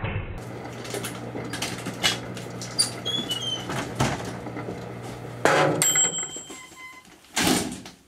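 Microwave oven running with a steady low hum while a flashlight burns inside it, crackling and popping irregularly, with a few thin high whistles. The hum stops about five and a half seconds in, and a louder rush comes near the end.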